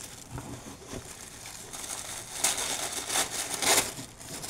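Gift packaging crinkling and rustling as it is handled, with louder bursts about two and a half and three and a half seconds in.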